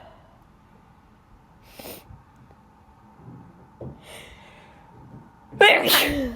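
A woman's allergic sneezing: short sniffs and breaths through the nose, then one loud voiced sneeze near the end.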